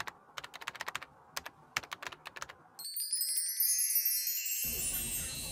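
Keyboard-typing sound effect: a quick, irregular run of sharp clicks for nearly three seconds, then a high, sparkling chime sweep that rings on and slowly fades.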